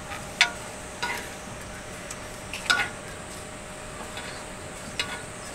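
Eating utensils clinking and scraping against a pan as food is picked out of it: about four sharp clinks a second or more apart, over a faint steady hum.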